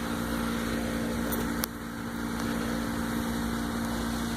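Steady mechanical hum from a running appliance motor, with one sharp click about a second and a half in.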